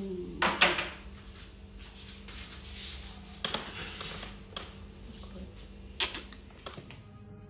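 Quiet room noise with a low steady hum, broken by a few short clicks or knocks, the loudest just after the start and about six seconds in.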